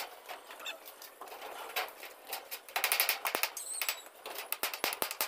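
Claw hammer tapping rapidly and lightly on a small fastener held against painted steel wall flashing. The taps come in several short quick runs, the busiest about three seconds in and near the end.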